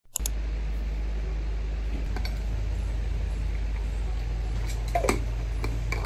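Steady low room hum with a few light clicks, and a soft knock and clink about five seconds in.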